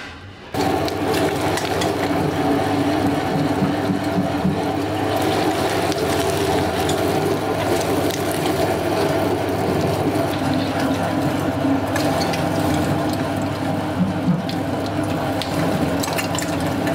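Electric meat grinder running steadily while grinding raw meat. The sound comes in suddenly about half a second in.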